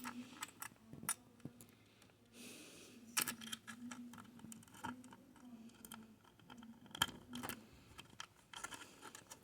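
Small scattered clicks and ticks of a screwdriver and small screws being worked by hand, driving the screws that hold a computer's replacement optical drive in its bracket.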